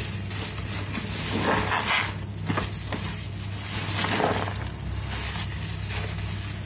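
Soap-soaked foam sponges squeezed by gloved hands in a sink of thick suds: wet squelching of foam and lather, with louder squeezes about one and a half, two and a half and four seconds in.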